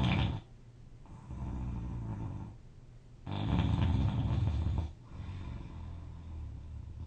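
A person snoring loudly in deep sleep: a loud snore on each breath about every four seconds, with quieter breathing sounds between them.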